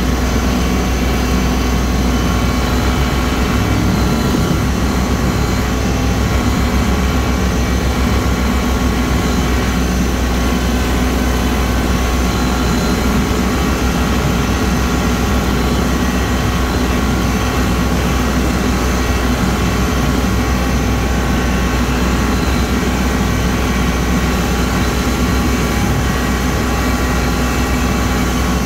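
Kubota L3302 tractor's three-cylinder diesel engine and PTO-driven rotary cutter running steadily at working speed while mowing overgrown grass and weeds.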